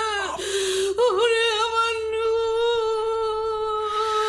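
A voice humming long held notes. A short hiss comes about half a second in, then the voice steps up in pitch and holds one steady note for about three seconds.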